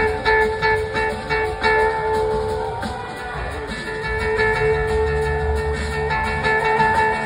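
Live blues-rock band playing amplified through a PA, heard from the audience: held guitar tones over regular drum hits for the first few seconds, the drums then easing off as a deep bass line swells through the middle.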